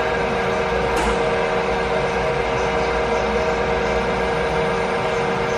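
Nomura NN32YB2 CNC Swiss-type lathe running: a steady machine whine of several held tones over a broad hum, with a single click about a second in.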